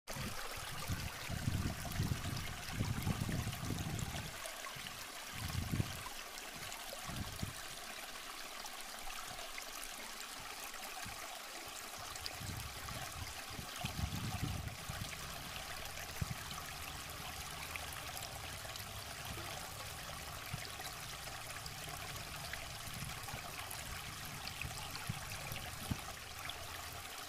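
Shallow river running and trickling over rocks, a steady hiss of water, with a few low bumps in the first few seconds.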